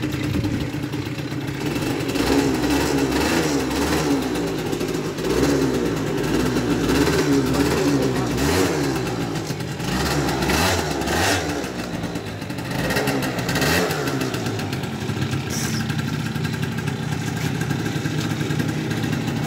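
MBK Ovetto scooter's two-stroke engine running, rising and falling in pitch with the throttle as the scooter is ridden slowly.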